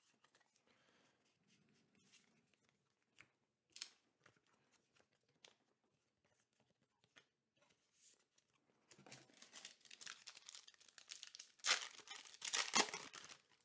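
A foil booster-pack wrapper crinkling and being torn open, with the loudest rips near the end. Before that come only a few faint ticks of cards being handled.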